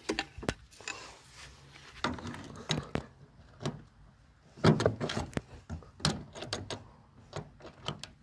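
Irregular knocks and clicks as a wooden rudder is fitted onto stainless steel gudgeons on an aluminium canoe's transom, metal and wood tapping together, with a cluster of louder knocks about halfway through.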